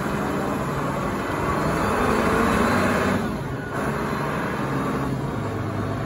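Engine of a large Caterpillar forklift running steadily as the machine drives and turns.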